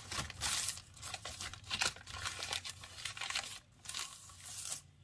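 Crumpled brown paper crackling and rustling as hands smooth it flat, in irregular strokes.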